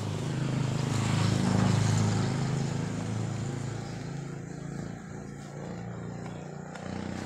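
A motor vehicle's engine hum with road noise, swelling over the first couple of seconds and then slowly fading.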